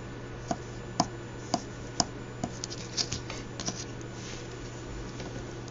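Light, sharp clicks about twice a second, turning irregular a little past halfway, over a steady low hum.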